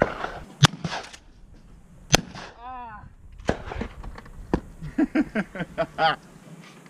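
Shotgun shots on a clay-shooting ground: short sharp cracks, the two loudest about half a second and two seconds in, with fainter ones later. Men's voices talk between them.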